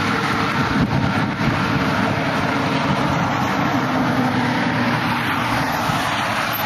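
Steady drone of a Chevy truck's engine and tyres at highway speed, heard from inside the cab.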